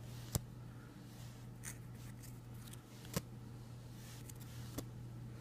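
A few short, faint clicks of hard plastic graded card slabs being handled and set down, spaced a second or more apart, over a low steady hum.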